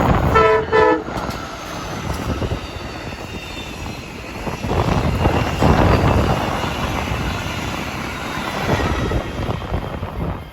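Two short blasts of a five-chime Nathan K5LA train horn in quick succession, then the noise of the passing Amtrak Wolverine train on the rails.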